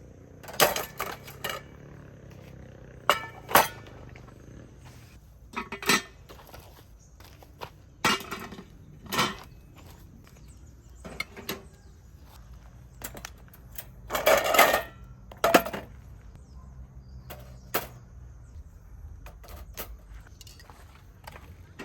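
Dishes and utensils clinking and clattering in irregular knocks a second or two apart, with a longer, louder clatter about two-thirds of the way through.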